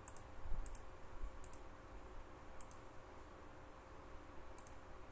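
Computer mouse clicking five times at uneven gaps, each click a quick press-and-release pair, over a faint steady hum. There is a dull low thump about half a second in.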